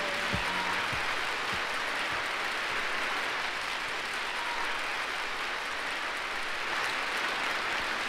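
Large concert audience applauding between songs on a live recording played back from a vinyl LP. The clapping holds steady throughout.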